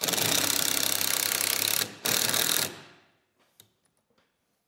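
Cordless impact driver driving screws into a wooden roof rafter: a loud clattering run of about two seconds, a brief stop, then a second, shorter burst as the screw seats, after which it stops.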